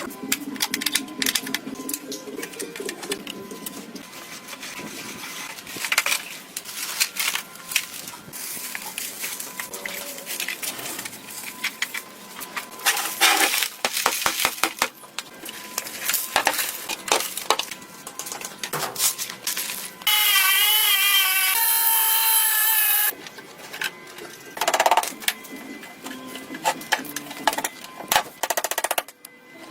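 Hand work on metal and wood parts: repeated knocks, clicks and scraping. About twenty seconds in, a power tool runs loudly for about three seconds with a wavering whine.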